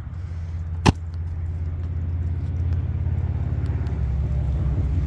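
A motor vehicle's engine idling with a low, even pulse, growing slowly louder toward the end. A single sharp click comes about a second in.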